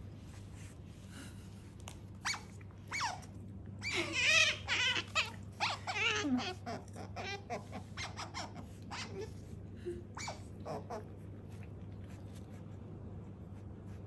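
Asian small-clawed otter calling in a run of high-pitched, wavering squeaks and squeals, loudest about four to six seconds in, thinning to short chirps that stop around eleven seconds.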